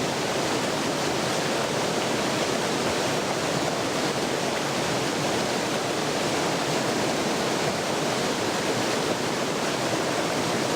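Torrent of water rushing over rocks: a steady, even rush with no breaks.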